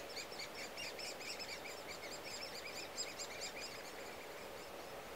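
Great spotted woodpecker nestlings begging from the nest hole: an unbroken run of short, high chirps, several a second, over a steady low background noise.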